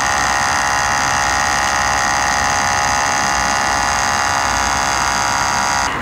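Outin Nano portable espresso machine's electric pump running with a steady high buzz as it forces an espresso shot through a capsule. It cuts off suddenly near the end as the shot finishes and the machine stops.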